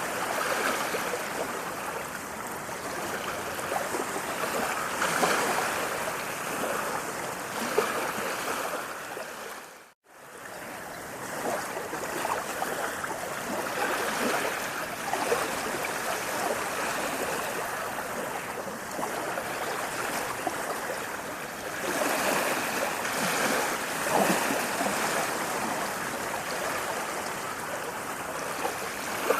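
Running water, a steady splashing and gurgling flow. It drops to silence for a moment about ten seconds in, then fades back in.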